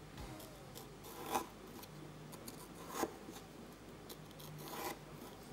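Small serrated paring knife cutting and scraping into a raw carrot, faint rasping strokes with two sharper cracks about a second and a half apart as pieces of carrot give way.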